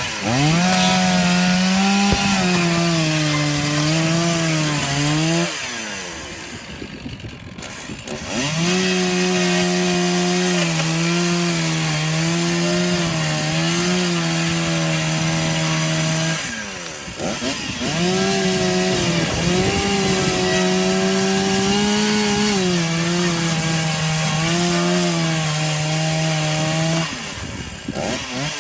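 Chainsaw running at full throttle and cutting wood, its engine note sagging and wavering under load. It eases off three times between cuts, about six, seventeen and twenty-seven seconds in, then runs back up.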